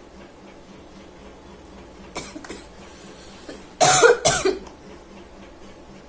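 A woman sneezing. A short, sharp, breathy burst comes about two seconds in, then a loud voiced sneeze in two quick parts near the four-second mark.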